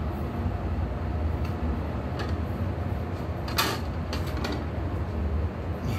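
Steady low hum underneath a few light clicks and knocks from a metal licence plate and putty knife being handled. The sharpest knock comes about three and a half seconds in, as the plate is laid flat on the bench.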